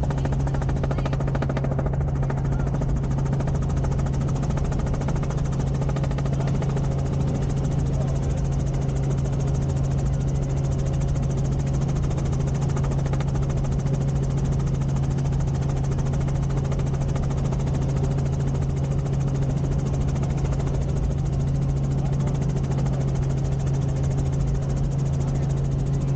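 Helicopter engine and rotors running steadily: a loud, even drone with a strong low hum that holds one pitch throughout.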